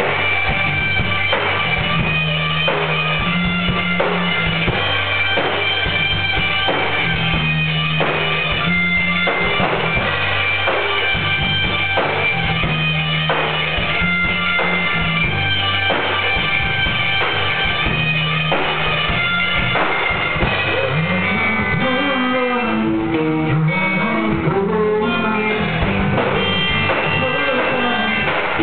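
Rock band playing live in a rehearsal room: electric guitars, keyboard, bass and drum kit on a steady beat with a repeating bass line. A melody slides up and down for a few seconds about three-quarters of the way through.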